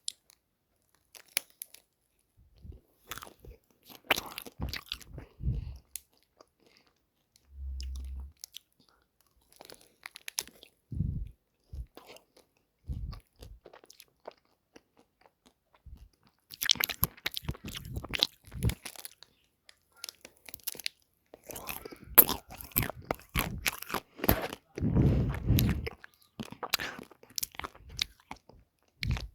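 Someone biting into and chewing a Wild Bar close to the microphone: irregular runs of crunching bites and chewing with short pauses between them, busiest in the second half.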